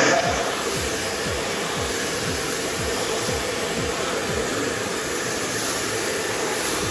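Hair dryer blowing steadily as a beard is blow-dried over a round brush, with a music beat underneath.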